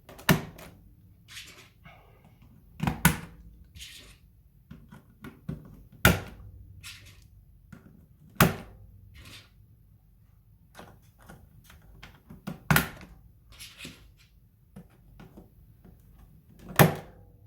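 Keycaps being pressed back onto a mechanical keyboard's switches. Six sharp knocks come two to four seconds apart, with lighter clicks and taps between them.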